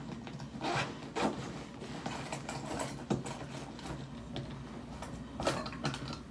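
Rustling and rubbing of things being handled, with a few short sharp clicks and knocks.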